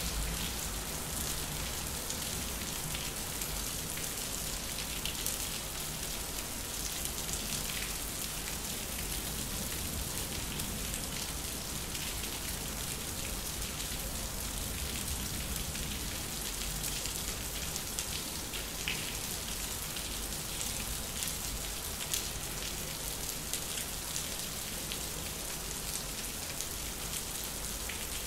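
Steady rain falling on a concrete yard: an even wash of noise full of small drop hits, with a few louder single drops here and there.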